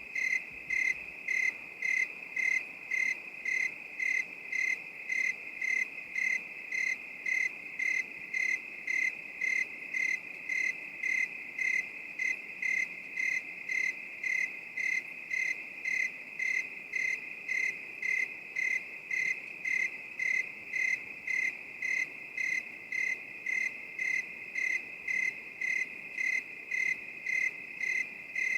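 Crickets chirping: a steady high trill with louder chirps repeating evenly, a little under twice a second.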